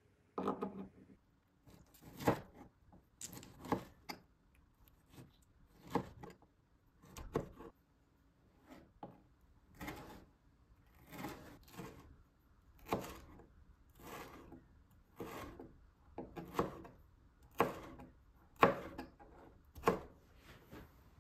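Chef's knife dicing a tomato on a plastic cutting board: separate knife strikes through the tomato onto the board, about one a second, some coming in quick pairs.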